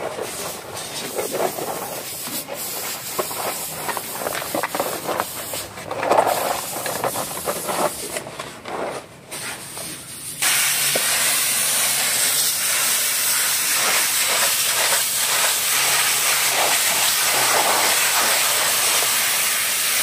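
Hand brush scrubbing a soapy rubber car floor mat in quick, uneven strokes. About halfway through, a pressure washer comes on with a sudden, steady hiss of spray, rinsing the mats.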